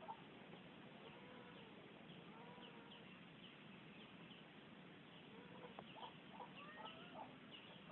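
Faint background bird calls: repeated short high chirps with rising-and-falling calls like chickens clucking. The calls grow busier in the second half.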